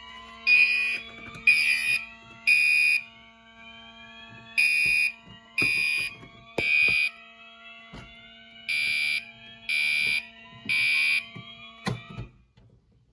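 Fire alarm horn sounding the temporal-3 evacuation pattern: three half-second blasts about a second apart, a pause, then repeated, three groups in all. Fainter tones glide slowly upward underneath, and a sharp click comes near the end.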